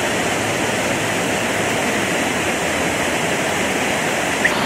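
Lincoln Center's Revson Fountain: many jets of water splashing back into the pool, making a steady rush of noise.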